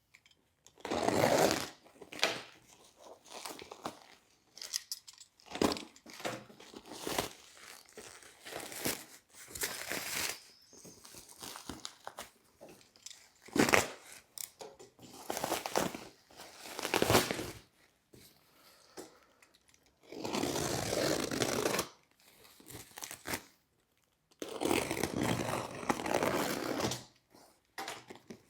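Bubble wrap and cardboard wrapping being torn open and crumpled by hand, in irregular bursts of rustling, crinkling and sharp crackles, with two longer tearing rustles near the end.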